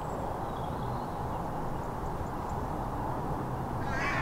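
Steady outdoor background noise with a faint low hum, and a bird's call starting near the end.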